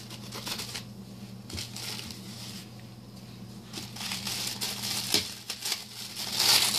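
White wrapping paper rustling and crinkling as a small package is untied and unwrapped by hand, growing louder in the last two seconds.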